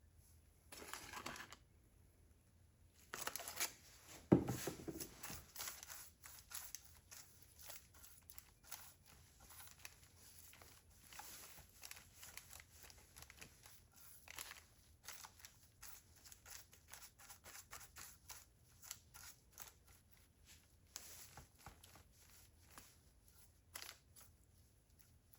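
Hand cleaning of a Stihl chainsaw guide bar: many quick, irregular scraping and rubbing strokes against the metal, with one sharper knock about four seconds in.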